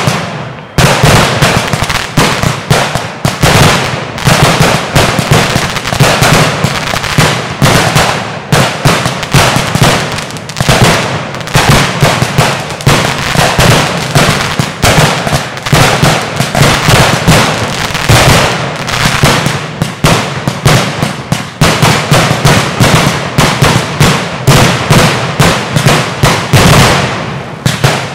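Aerial display fireworks going off in a dense barrage: sharp bangs of bursting shells, several a second, without let-up.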